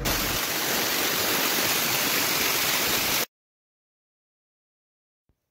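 A loud, even rushing noise that cuts off abruptly a little over three seconds in, leaving silence.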